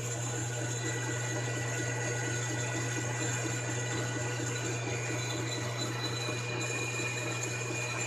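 Metal lathe running steadily while it turns brass rod stock: an even motor hum with constant high-pitched whines above it.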